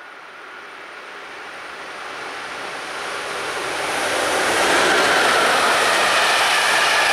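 Czech Railways electric locomotive hauling a passenger train past at speed: a rushing noise of wheels on rails that grows steadily louder for the first four or five seconds and then stays loud as the coaches go by.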